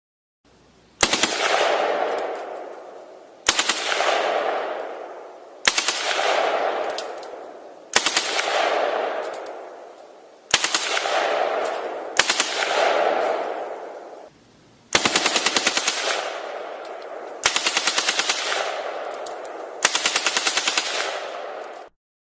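Gunfire sound effects: nine short bursts of rapid automatic fire, each trailing off in a long echo. The last three bursts are longer and denser.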